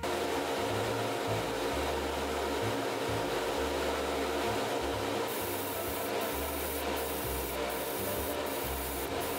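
Spray booth extractor fan running steadily with a constant hum-like tone. About five seconds in, an airbrush starts hissing, with short breaks less than a second apart as the trigger is worked.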